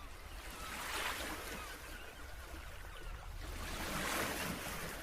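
Sea waves washing on a shore, swelling twice, about a second in and again near the end.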